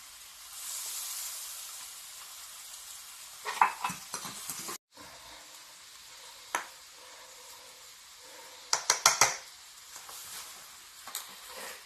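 Sauerkraut and frozen tofu sizzling in a pot, with a spatula stirring and clinking against the pot in quick clusters about three and a half seconds in and again about nine seconds in.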